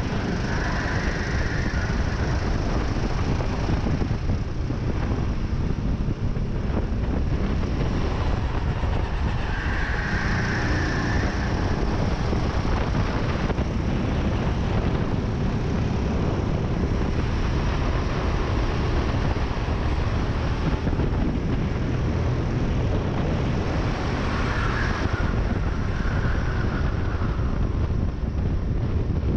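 Racing kart's engine running hard at racing speed, heard steadily from an onboard camera on the kart, mixed with wind noise on the microphone.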